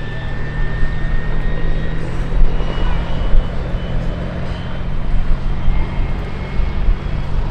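Westland Whirlwind helicopter with its Bristol Siddeley Gnome turboshaft engine flying past: a steady, loud low rotor and engine sound with a faint high turbine whine over it.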